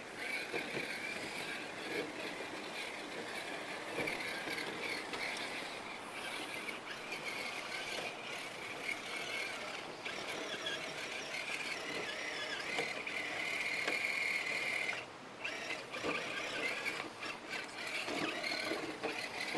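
Axial Trail Honcho RC crawler's electric motor and gear drive whining as the truck crawls over rocks, the pitch holding steady and swelling in places, cutting out briefly about fifteen seconds in before picking up again. Faint clicks of tyres and chassis on stone.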